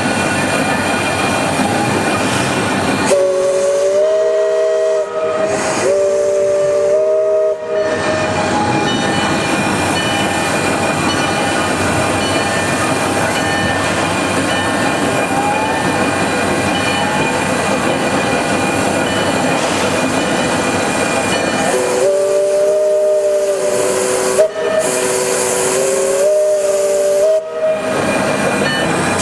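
A 1913 0-4-0 steam locomotive's chime whistle blown in two groups of blasts, about 3 seconds and about 22 seconds in, each a chord of several notes. Under it runs a loud steady hiss of steam.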